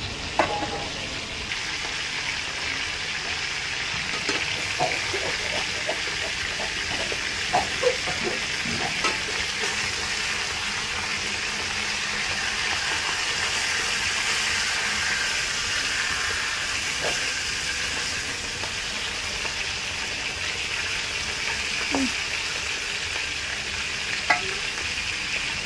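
Whole fish frying in hot oil in a wok over a charcoal stove: a steady sizzle, with a few sharp clinks of a metal spoon against the wok, several in the first third and two near the end.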